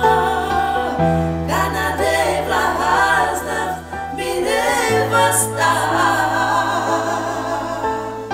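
A Christian praise song: voices singing together over long held low bass notes, the bass changing a second in and again about halfway.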